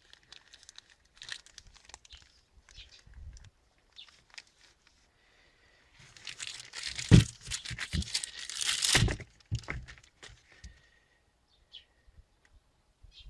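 Clear plastic packaging bag crinkling and rustling as a new tailgate gas strut is pulled out of it: light scattered crackles at first, then a loud, dense stretch of rustling and tearing from about six to ten seconds in, with a couple of dull knocks.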